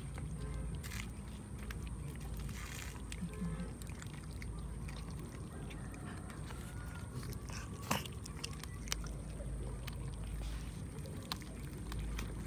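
Cats chewing raw fish close to the microphone: wet smacking and irregular clicking chews, with a sharper click about eight seconds in.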